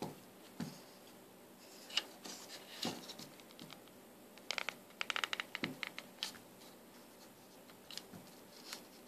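Plastic washer drain pump motor being handled and turned over by hand. Faint clicks, taps and scrapes of its plastic housing, with a quick run of clicks about halfway through.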